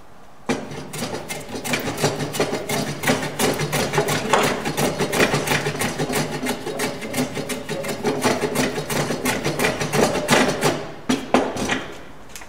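Metal hand plane taking quick, repeated strokes across the top of a wooden bridle joint, with a few knocks near the end.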